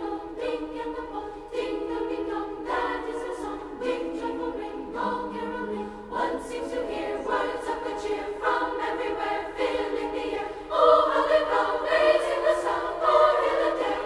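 Background music of a choir singing in sustained chords, swelling louder about eleven seconds in.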